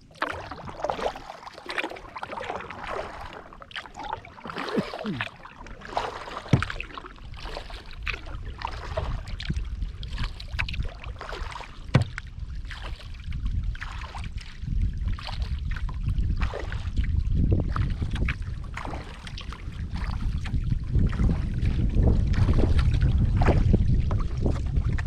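Kayak paddle dipping and splashing in the water, stroke after stroke at an uneven pace. Wind rumbles on the microphone, growing stronger in the second half.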